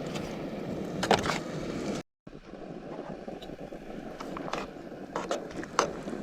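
Cooking at a propane camp stove: a steady hiss with a few sharp clinks and knocks of pot and utensils, the loudest about a second in. The sound drops out for a moment around two seconds in.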